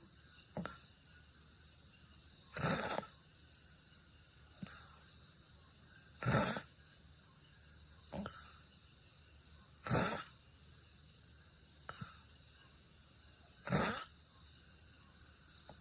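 A person snoring softly in sleep, in a slow breathing rhythm: a louder snore about every four seconds, four in all, with a fainter breath between each.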